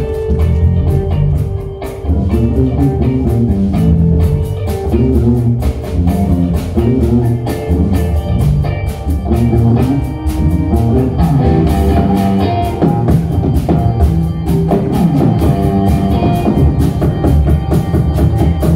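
Live rock band playing an instrumental passage on drum kit, guitar and keyboards, with a steady beat.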